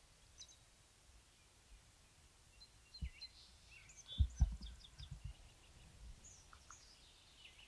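Songbirds chirping and calling, with a few low thumps in the middle, the loudest a pair a little after four seconds in.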